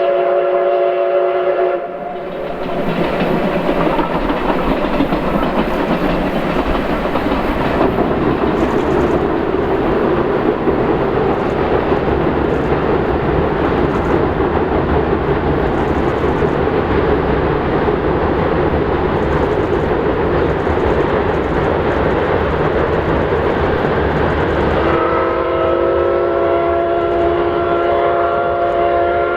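C57 steam locomotive whistle ends about two seconds in. Then the locomotive's draft exhaust and the rumble of the train on the iron bridge run for over twenty seconds, until a second long whistle blast begins about 25 seconds in and is still sounding at the end.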